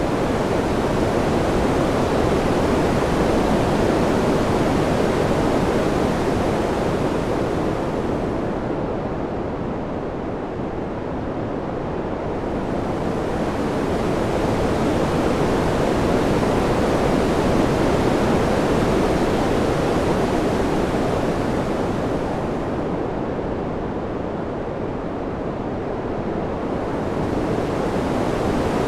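Ambient wind noise, a dense even rush with no gusts or clicks, swelling and easing slowly. Twice it dulls as the high end drops away, about nine seconds in and again about twenty-three seconds in, then brightens again.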